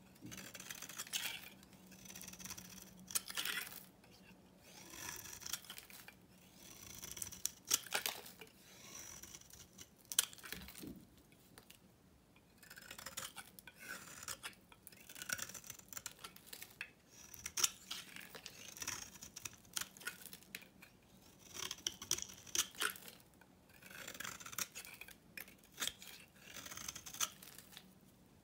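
Utility knife blade shaving an old, dry bar of soap, a scraping stroke every second or two as crumbly flakes come off.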